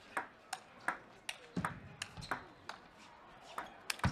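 A fast table tennis rally: the celluloid-type ball cracks off rubber bats and the table in sharp clicks about every third of a second, with a brief gap near the three-second mark. Just before the end comes a heavier knock with a low thud.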